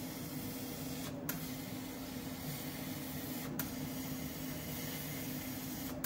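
CO2 laser cutter at work on plywood: a steady hiss from the air-assist nozzle over a low machine hum. The hiss drops out briefly and comes back with a click, about a second in and again about three and a half seconds in.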